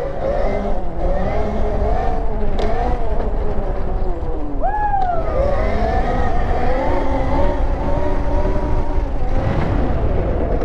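MotoFlow K3000 electric dirt bike's motor and gearbox whining while riding, several tones that rise and fall with speed, with a sharp swoop about halfway through. Wind rumble on the helmet microphone sits underneath.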